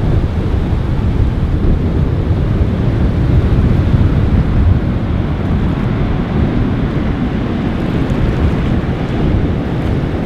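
Wind buffeting the microphone in a steady low rumble, with ocean surf beneath it.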